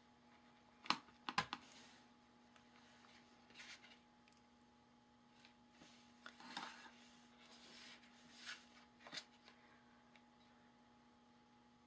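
Clear acrylic stamp block tapping on a plastic-cased embossing ink pad while the snowflake stamp is inked: two or three sharp clicks about a second in, then softer taps and rustles of the block and paper.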